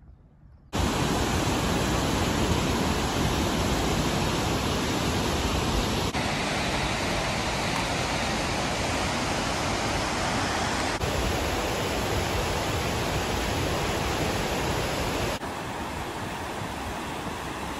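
Steady rush of a waterfall and a fast-flowing mountain stream, starting suddenly about a second in. Its level shifts abruptly a few times and drops somewhat near the end.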